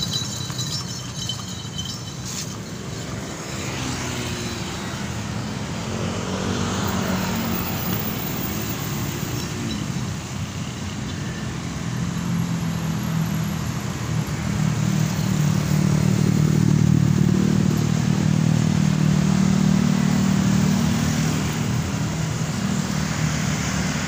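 Road traffic of cars and motorcycles passing, engines running, with one vehicle's engine note gliding past. A low engine hum builds and is loudest in the second half.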